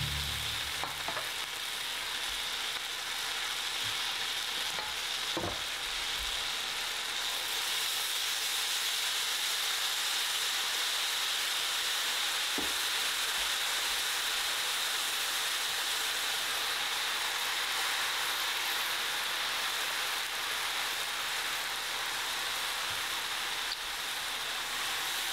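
Stir-fried instant noodles with egg and chicken sizzling steadily in a hot frying pan, with a couple of faint knocks.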